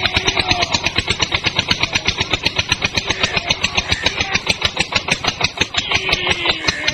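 Tractor engine chugging steadily at idle, about ten even beats a second.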